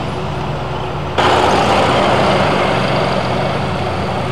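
Steady low hum of a motor vehicle's engine idling. About a second in, a louder, even rushing noise starts abruptly.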